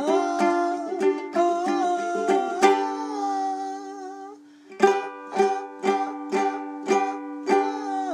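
Ukulele riff: quick picked notes, then a chord left ringing for a second or two, then a run of even strums about half a second apart.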